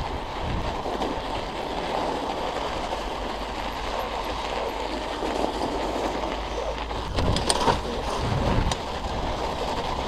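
Mountain bike riding along a snow-packed trail: a steady rumble of tyres on snow and rattle from the bike, with a few sharp clicks and knocks about seven to eight seconds in.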